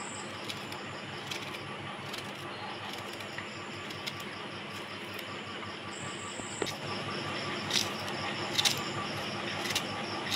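Small knife clicking through an onion held in the hand, slices dropping into a steel bowl, with a few sharper clicks in the last few seconds. Insects chirp steadily throughout.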